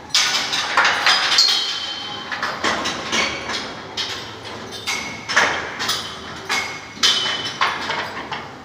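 Repeated sharp metallic knocks with a short ringing after several of them, about two a second in an uneven rhythm.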